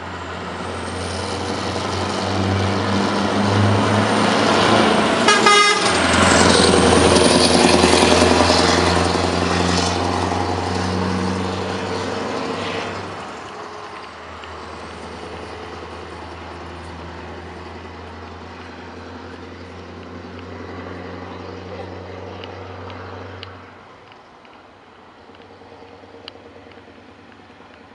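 Scania R500 V8 truck engine running under power, growing loud as the truck approaches and passes, then fading as it drives away. A short horn toot sounds about five seconds in, as it comes alongside.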